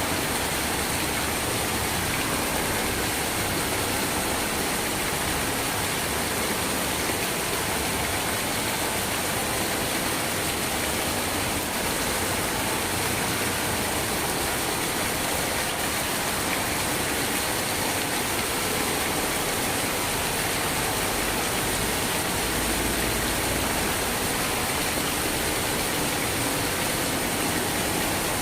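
Steady heavy rain, an even, unbroken hiss of falling water, with a brief deep rumble late on.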